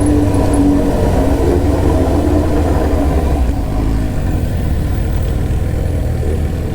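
Motorcycle engine running steadily at low revs while riding, with a low rumble and wind noise on the microphone.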